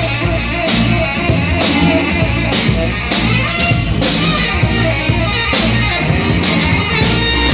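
Live rock band playing a song: guitar, bass and drum kit with a steady beat and cymbal hits.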